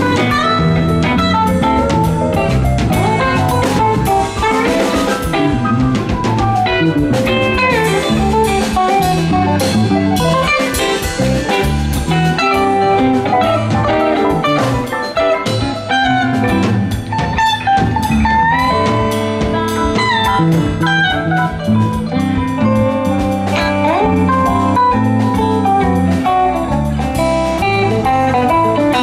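Live rock band jamming instrumentally: an electric guitar plays a lead line with bent and sliding notes over a drum kit and the rest of the band.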